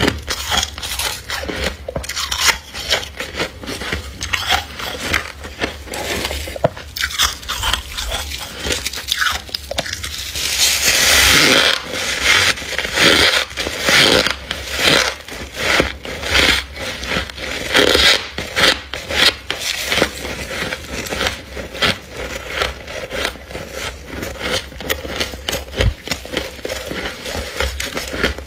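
Thick frost inside a deep freezer being scraped and crunched: a run of short, crisp crunching scrapes with crackles, and one longer continuous scrape about ten seconds in.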